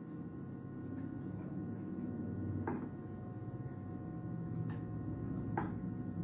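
A few light clicks and taps as small computer parts are handled, over a steady low hum.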